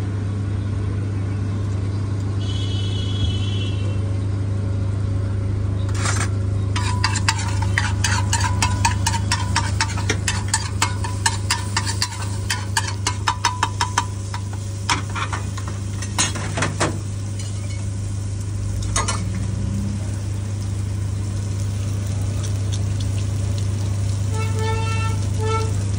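Steel spatula chopping and scraping egg on a hot flat iron tawa, a rapid clatter of metal strikes from about six seconds in until around seventeen seconds. A steady sizzle and a low hum run underneath.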